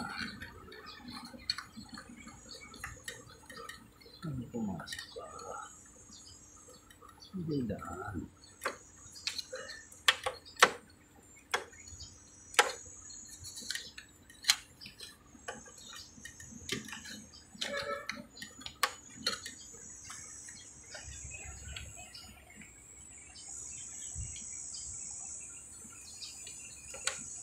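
Scattered sharp clicks and knocks, clustered in the middle, from hands working wiring and connectors inside an air conditioner's control box.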